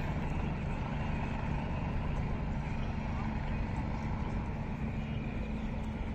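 Helicopter flying past overhead: a steady engine and rotor drone.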